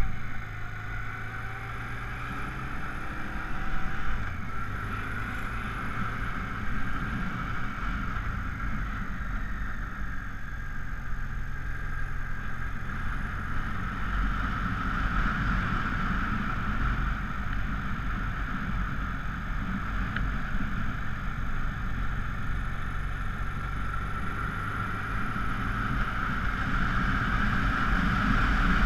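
Honda Africa Twin XRV750's V-twin engine running steadily as the motorcycle climbs, under a steady rush of wind and road noise.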